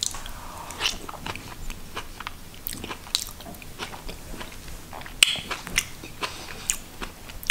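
A person chewing a mouthful of soft broccoli-and-potato mash close to the microphone, with irregular mouth clicks.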